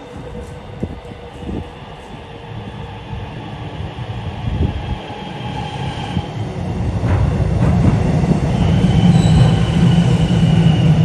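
A train approaching and growing steadily louder. High steady wheel-squeal tones run through it, and a low hum swells in the second half. A few sharp clicks come in the first couple of seconds.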